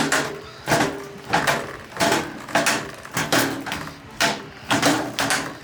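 Steel ball clacking against the inside of a tuba's brass tubing as a rare-earth magnet drives it over a dent, pushing the dent out. Sharp knocks come in a steady rhythm, about one and a half a second, each with a short ring from the brass.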